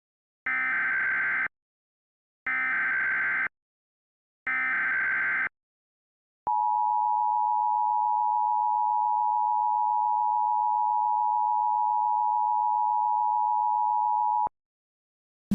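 Emergency Alert System tones: three one-second bursts of SAME digital header data about a second apart, then the two-tone attention signal (853 and 960 Hz together), a steady dual tone held for about eight seconds before cutting off.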